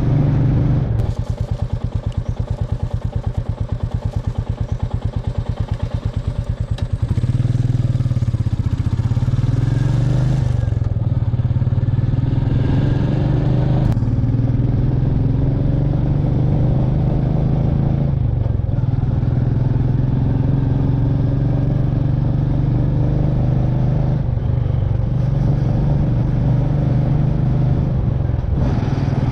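Royal Enfield Meteor 350's single-cylinder engine on the move. For the first several seconds it runs off the throttle with distinct separate thumps, then it pulls steadily, rising in pitch through each gear with several brief gaps for shifts.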